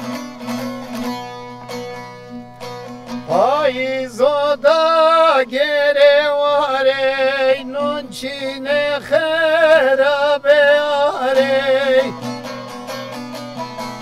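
Bağlama (long-necked Turkish folk lute) plucked in a quick, steady pattern. From about three seconds in until about twelve seconds, a man sings a long, loud, ornamented line with a wavering vibrato over it.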